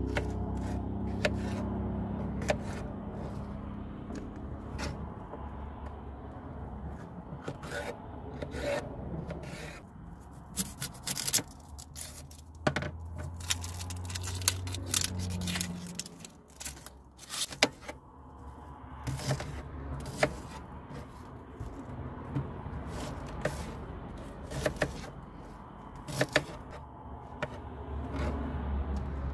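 Kitchen knife cutting vegetables on a plastic chopping board: irregular sharp knocks of the blade against the board, with rubbing and scraping as a red pepper is sliced, an onion peeled and mushrooms cut. A steady low rumble runs underneath.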